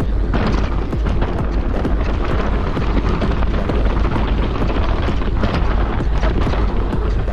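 Mountain-bike descent on a rocky trail: wind buffeting the action-camera microphone in a continuous low rumble, with tyres and bike rattling over stones in quick clicks.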